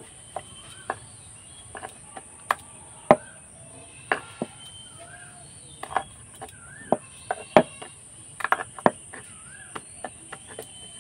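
Scattered sharp clicks and light taps at uneven intervals as a log of layered dough is rolled and pressed by hand on a wooden board. Behind them run a steady high-pitched hiss and a few short chirps.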